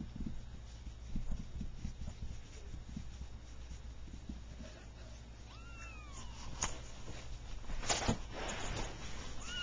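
Three-week-old Persian kittens mewing: thin, high mews that rise and fall, a couple a little past halfway and more at the end, with a brief rustle on the blanket about eight seconds in.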